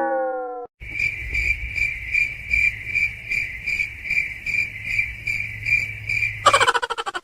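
Cricket chirping steadily at about three chirps a second, each chirp the same high tone. It opens on the end of a cat's meow that falls in pitch, and near the end a quick rattling run of pulses takes over.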